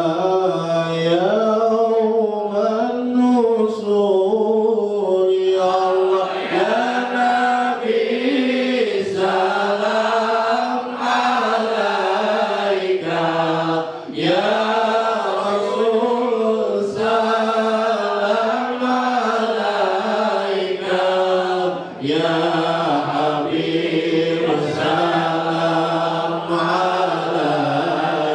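A man singing an Arabic sholawat, a devotional chant in praise of the Prophet Muhammad, into a handheld microphone: a slow, ornamented melody of long held notes that bend up and down, broken only by short breaths.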